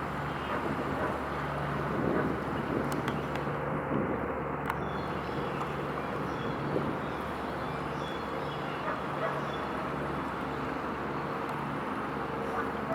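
Steady outdoor background noise with a low hum that pulses on and off about once a second, over a faint steady higher tone.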